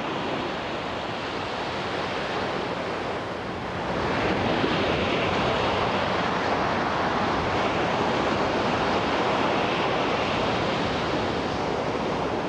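Sea surf washing against a rocky shore: a steady rushing that swells louder about four seconds in.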